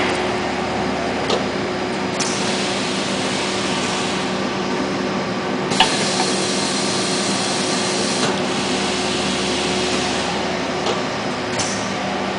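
Belt-making machinery running: a steady hum under an even hiss, broken by a few sharp mechanical clicks, the sharpest about six seconds in.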